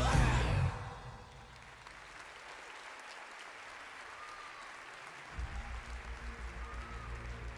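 Theatre audience applauding as the rock backing track cuts off just under a second in. A new backing track with a steady low beat comes in about five seconds in, under the applause.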